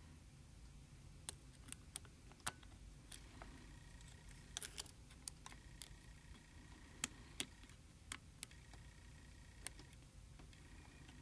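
Faint, irregular clicks of a hook pick and tension wrench working the pins inside an Abus Diskus disc padlock, about a dozen sharp ticks at uneven intervals.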